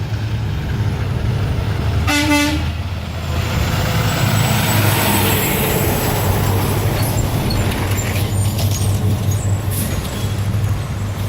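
A passing truck sounds one short horn toot, a single beep about two seconds in, over steady engine and traffic noise. A vehicle then goes by with a rush of noise.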